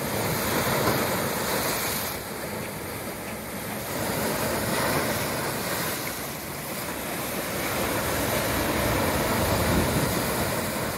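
Sea waves breaking and washing up a sandy beach, the surf swelling and easing three times.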